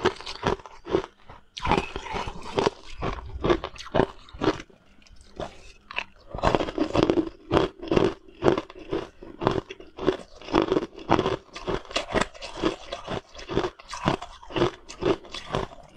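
Close-miked eating: a person chewing food with crisp crunching bites and wet mouth sounds, in quick, irregular strokes, picked up by a clip-on microphone.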